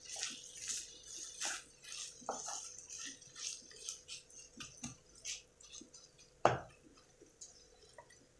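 A wooden spatula stirs and scrapes a chicken and cheese mixture around a black wok, in short strokes about twice a second. About six and a half seconds in comes a single louder knock against the pan, and the stirring then dies away.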